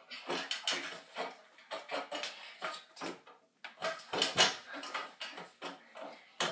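Metal home gymnastics bar and its frame clanking and rattling in irregular knocks as two girls swing and flip on it, loudest about four seconds in.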